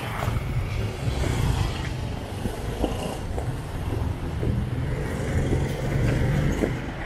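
Street traffic: a motorcycle and cars drive past close by, engines running. A pickup truck passes near the end, when the engine noise is loudest.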